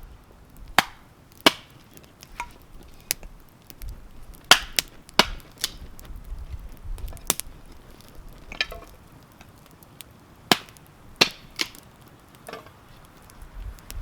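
Firewood being broken up: about a dozen sharp, irregular cracks and knocks, a few in quick pairs.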